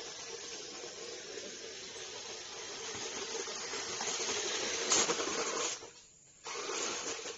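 Radio-controlled 4x4 crawler truck driving over dry dirt and leaves: its motor and gears run with a steady whine and hiss that grows louder, cut out briefly about six seconds in, then start again.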